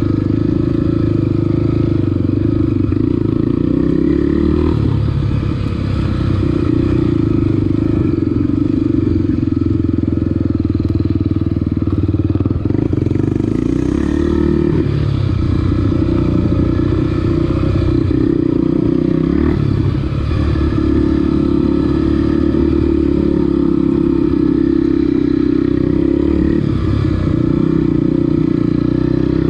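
Honda Tornado 250's single-cylinder four-stroke engine running steadily as the bike climbs a trail, its note dipping and picking up again several times with the throttle.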